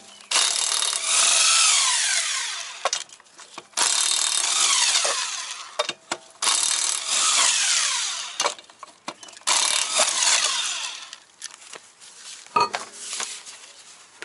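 DeWalt cordless power tool with a socket spinning the lug nuts off a Honda Accord's front wheel: four runs of about two seconds each, the motor's pitch falling during each run. A short metallic clatter follows about a second and a half before the end.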